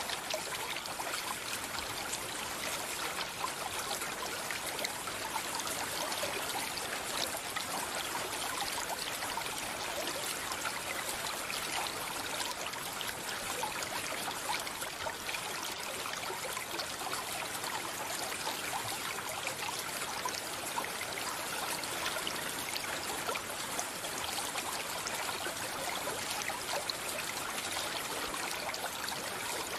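A mountain stream flowing and trickling steadily.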